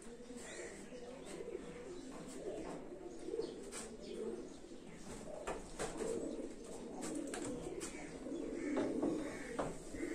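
Birds calling repeatedly: low, wavering calls throughout, with a few short higher chirps and scattered faint clicks.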